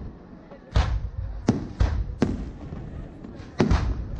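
Aerial firework shells bursting overhead: about six sharp bangs at uneven intervals, two close together near the end, each trailing off in an echoing rumble.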